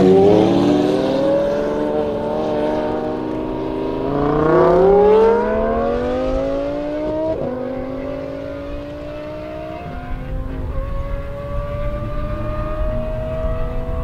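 Lamborghini Huracan Spyder's V10 with a Levella X-pipe exhaust, alongside a second supercar, accelerating hard at full throttle in a drag race. The engine notes climb in pitch and drop back at each upshift, about 4, 7, 10 and 13 seconds in, and grow fainter as the cars pull away.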